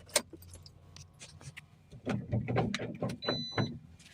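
Scattered clicks and knocks of handling in and around a small vehicle, with a short high-pitched electronic beep a little past three seconds in.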